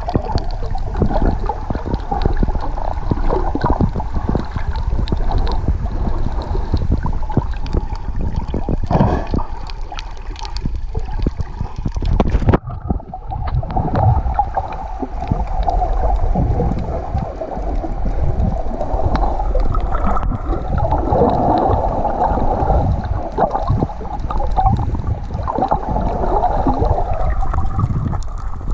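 Muffled underwater sound of a swimmer snorkeling: a steady low rumble of moving water with crackling and bubbling from the swim strokes. The upper sound drops away for a moment about twelve seconds in.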